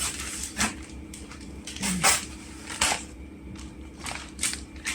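Gift box and packaging being handled and opened by hand: a handful of scattered short knocks and rustles.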